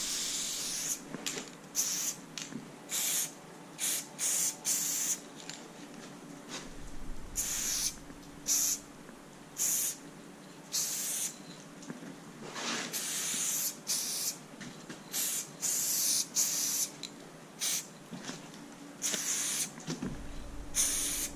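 Aerosol spray paint can being sprayed in many short bursts, each a hiss lasting a fraction of a second to about a second, with brief pauses between strokes as the lines of a graffiti piece are painted.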